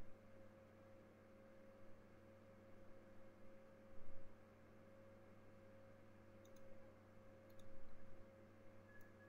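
Faint steady electrical hum with a few sharp computer mouse clicks in the second half and a couple of soft low bumps.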